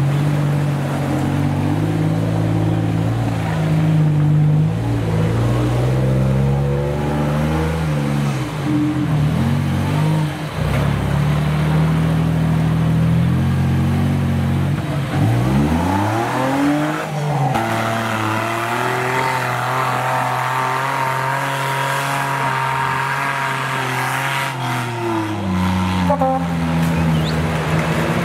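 Off-road 4x4's engine working under throttle, its pitch swinging up and down: it revs up sharply about halfway through, holds a higher steady note, then drops back near the end.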